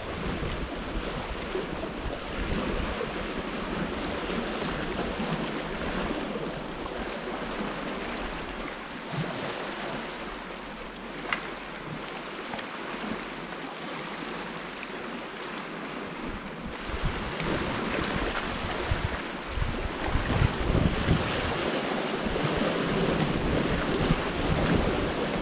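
Small waves washing and splashing against a rocky shoreline, a steady surf noise, with wind gusting on the microphone, most strongly in the second half. A single sharp tick about eleven seconds in.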